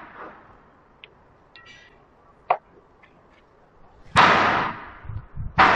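V-belts being worked by hand onto the flywheel of a shaking table's drive: sudden loud bursts of noise, each dying away over about a second, about four seconds in and again near the end, with a single sharp knock and a few faint clicks in between.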